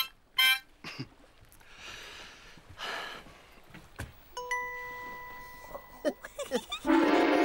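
Mouth organ playing two short reedy notes, then small handling knocks and a steady ringing tone held for about a second and a half, and a loud sustained chord near the end.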